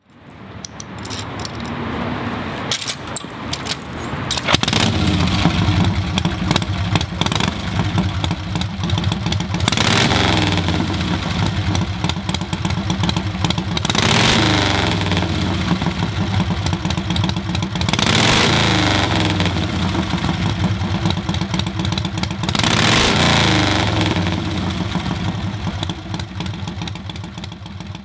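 Custom chopper motorcycle engine running and being revved, its pitch rising and falling back four times over the stretch. A few sharp clicks come a few seconds in.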